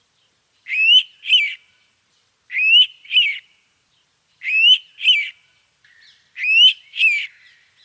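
Indian pitta calling: a clear two-note whistle, the first note rising and the second falling, given four times about two seconds apart.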